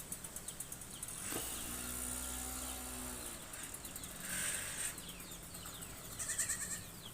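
IFB front-load washing machine switched on after a drum-arm repair, its motor giving a steady low hum for about two seconds, starting about a second in. Faint short high-pitched bursts follow.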